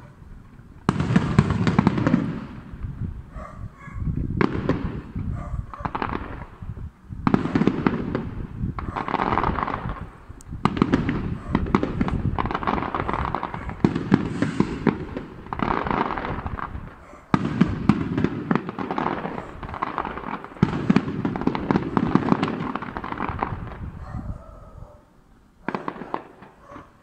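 Aerial firework shells bursting in steady succession, a boom about every second and a half, each followed by a rolling echo. The barrage thins out near the end, with one last burst.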